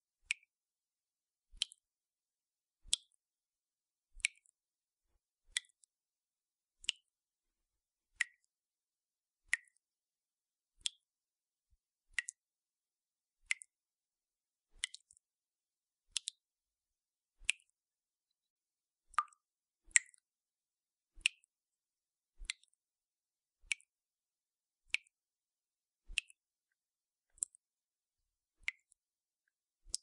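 Dripping tap: single water drops landing about every 1.3 seconds, each a short plink at a slightly different pitch, with silence between. Around two-thirds of the way through, two drops fall close together, the second the loudest.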